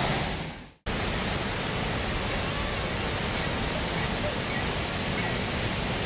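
Steady rushing roar of a large waterfall in full monsoon flow. It fades out to silence just under a second in, then comes back suddenly and runs on evenly.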